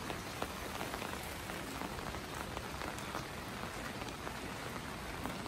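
Steady rain falling, with individual drops heard as small close clicks.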